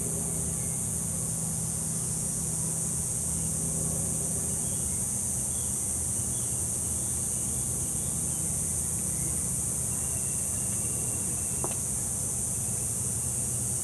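Steady high-pitched trilling of an insect chorus over a low, steady hum, with a few faint chirps and one short click near the end.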